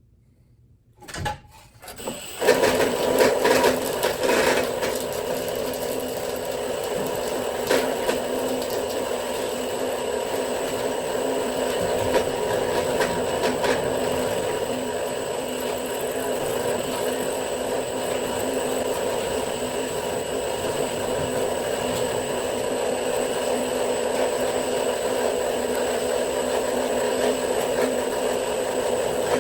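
Electric drill driving a homemade wire winder, starting about two seconds in and then running steadily under load as it spools 2/0 copper cable, with a steady hum and whine and a few light clicks.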